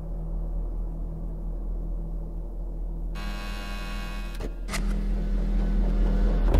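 Background music: a steady low droning hum, joined about three seconds in by a bright, sustained chord of many high tones, growing louder near the end.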